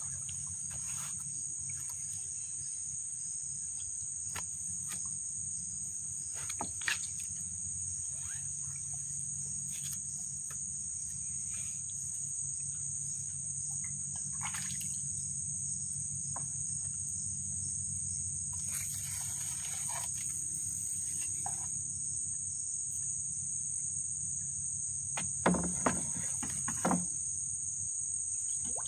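Steady high-pitched chorus of insects in flooded rainforest, unbroken throughout. A few short knocks cut in, the loudest a cluster near the end.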